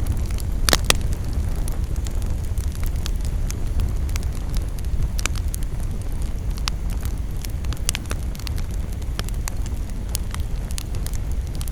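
Campfire burning: a steady low rumble of the flames with irregular sharp crackles and pops from the burning wood, one louder pop about a second in.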